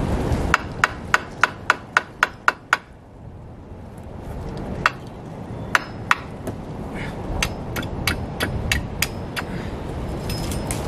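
Hammer driving a nail into wood: a quick run of about nine blows, roughly four a second, then a pause and a slower series of lighter taps.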